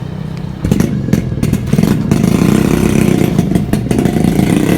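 An engine running, getting louder about a second in, with scattered clicks and clatter.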